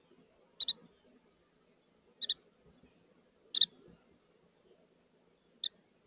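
Carolina wren giving short, high chip calls: three quick pairs about a second and a half apart, then a single note near the end.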